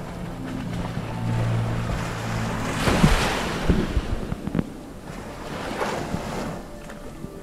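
Underwater sound of wave surge washing over a shallow rocky reef, recorded by a GoPro beneath the surface: two swells of rushing noise, about three and six seconds in, with scattered clicks and knocks. A low steady hum sounds in the first few seconds.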